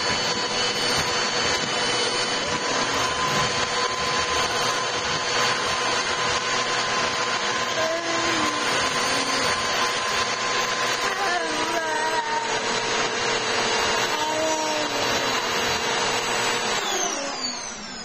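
Vacuum cleaner running steadily with a high motor whine, then switched off near the end, its whine falling as the motor spins down.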